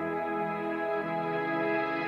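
Background music of slow, sustained held chords; the chord shifts about a second in.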